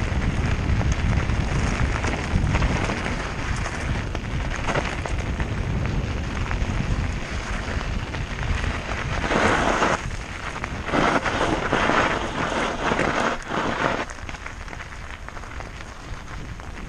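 Mountain bike tyres rolling and crunching over a loose gravel trail, with wind rumbling on the microphone. There is a louder stretch of crunching and rattling from about nine to fourteen seconds in, then it eases off.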